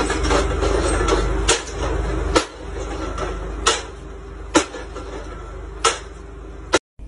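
Hydraulic post driver's hammer striking the top of a wooden fence post: about six sharp knocks roughly a second apart over the machine's steady engine rumble, which drops away after about two seconds.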